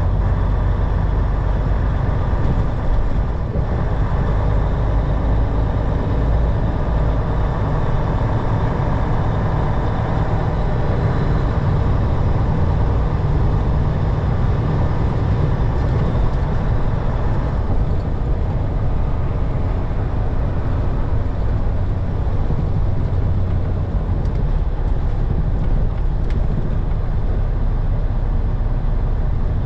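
Steady engine drone and road noise inside the cab of a semi-truck driving on a highway. The low engine note changes about three-quarters of the way through.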